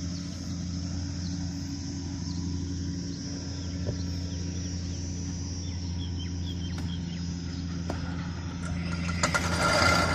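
An engine running steadily at idle with a low, even hum. Near the end a louder noisy swell with a whine rises over it.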